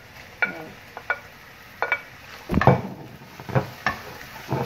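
Wooden spoon knocking and scraping against a plate and a frying pan as chopped tomato is pushed into the pan and stirred with chicken and vegetables, over a faint frying sizzle. A string of sharp knocks, the loudest a little past halfway.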